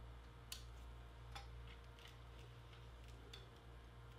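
Near silence over a low steady hum, with about half a dozen faint, light clicks scattered through it: hands handling the TV's power-supply circuit board and its clip-on wire connectors.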